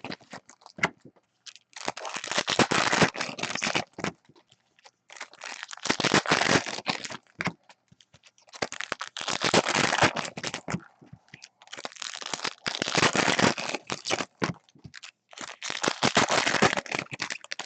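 Trading card pack wrappers crinkling and tearing as packs are opened and cards handled, in about five bursts of a few seconds each.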